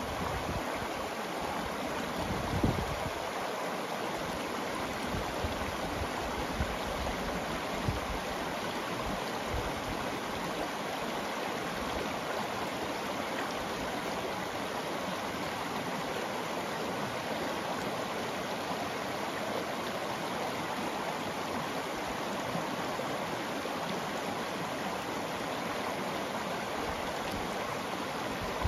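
Shallow, clear stream rippling over a pebble and cobble bed through small riffles: a steady rush of water. A brief low bump about three seconds in, with a couple of fainter ones soon after.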